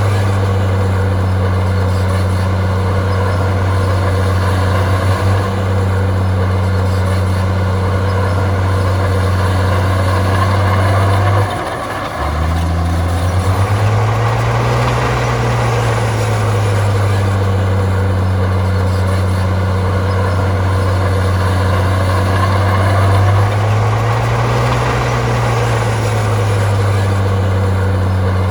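Heavy diesel engine of earthmoving machinery running under load. It drops briefly about twelve seconds in, then revs up and eases back twice.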